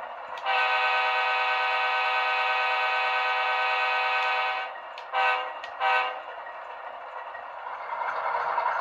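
Sound-equipped HO-scale CSX Dash 8-40B model locomotive's DCC decoder sounding a diesel air horn through its small onboard speaker: one long blast of about four seconds, then two short blasts. A rising rush of engine and running noise follows near the end.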